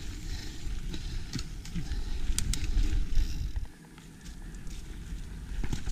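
Mountain bike rolling over a dirt trail: low wind rumble on the helmet camera's microphone with tyre noise and scattered clicks and rattles from the bike, dropping off briefly about four seconds in.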